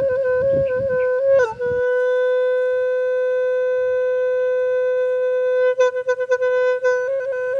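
A single woodwind instrument plays a slow melody: a few short notes, a slide down into a long held note, then a quick flurry of trills near the end.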